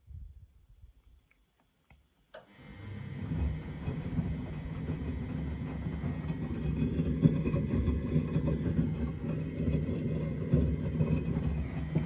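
Miele Novotronic W925 washing machine turning its drum in the wash rhythm: a click about two seconds in, then a steady rumble for about ten seconds that stops right at the end.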